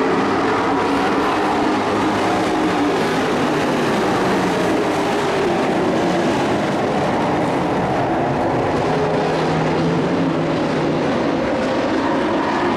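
Several dirt-track race pickup engines running together in a steady, loud drone, their pitches rising and falling as the trucks circle the oval.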